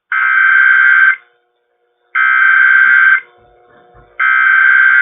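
Emergency Alert System SAME header: three one-second bursts of buzzing, screeching digital data tones, about a second apart, marking the start of an emergency alert broadcast.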